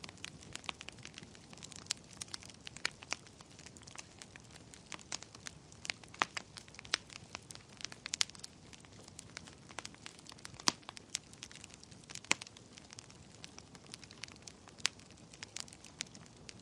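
Wood fire burning in a fireplace, crackling with irregular sharp pops of varying loudness over a soft steady hiss.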